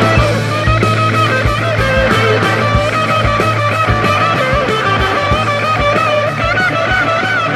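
Rock music with electric guitar playing a bending lead melody over a steady beat.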